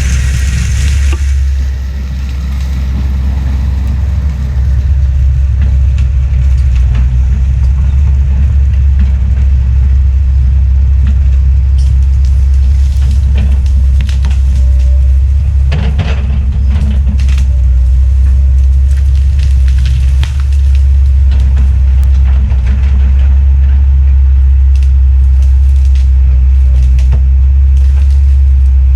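Forestry mulcher (Fecon Bullhog head on an ASV RT-120F track loader) working: a loud, steady, deep diesel drone with scattered cracking and snapping as brush and wood are ground up, more of it in the second half.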